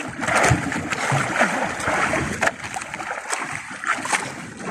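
Choppy waves splashing and slapping irregularly against the outrigger float and hull of a small outrigger fishing boat.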